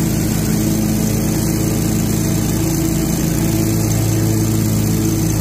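Toro ProLine 60-inch mower's engine running at a constant speed with its leaf-blower attachment engaged, a loud, steady drone.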